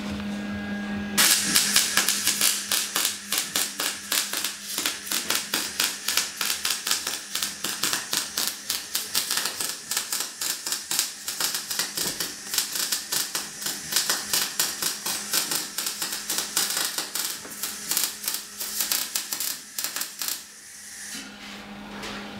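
Electric arc welding on a steel cage: the arc crackles and sputters in a rapid, uneven string of pulses over a hiss. It starts about a second in and cuts off near the end.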